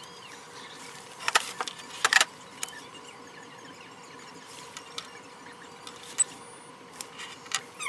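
A few sharp clicks and taps from handling the small plastic quadcopter and plugging its battery connector in, over a faint steady hum.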